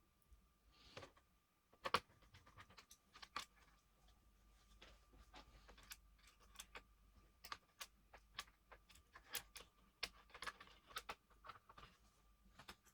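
Small scattered clicks and light taps of laptop parts and small tools being handled during disassembly, the sharpest about two seconds in, over a faint steady high tone.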